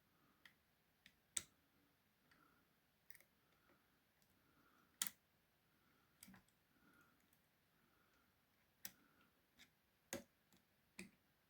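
Faint, irregular metallic clicks of music-wire picks and a tension tool working inside an ERA five-lever mortice lock as the levers are lifted, with a few sharper clicks among them.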